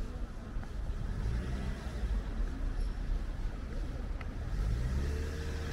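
Street traffic: a car engine running close by over a low rumble, growing a little louder about four and a half seconds in.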